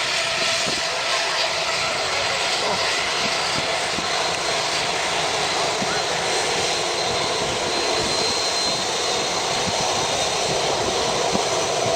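Jet airliner engines, a loud, steady rush of noise with a faint high whine running through it.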